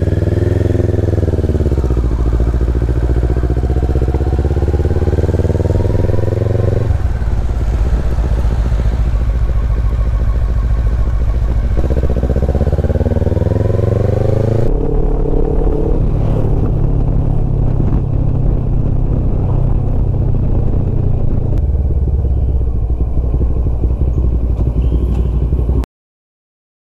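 Motorcycle engine pulling away and accelerating, its pitch rising near the start, dropping at a gear change, rising again, then running steady while cruising; the sound cuts off abruptly about a second before the end.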